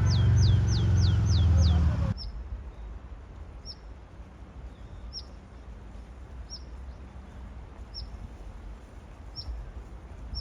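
A small bird calling, one short high chirp about every second and a half. For the first two seconds a loud low rumble of traffic runs under a quick run of six falling whistles.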